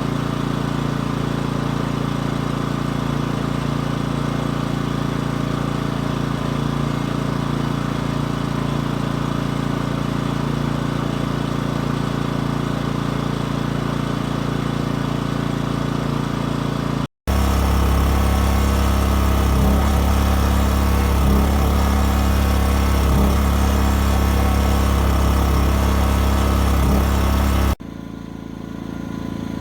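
Pulsar G2319N inverter generator's small gas engine running steadily. About 17 s in, a sudden cut brings a louder, lower-pitched running sound. Near the end another cut drops it to a quieter steady hum.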